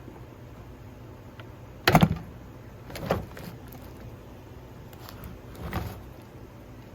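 Three hard knocks and clatters of the chainsaw and tools being handled while the anti-vibration spring is worked loose, the loudest about two seconds in, with lighter ones at about three and six seconds.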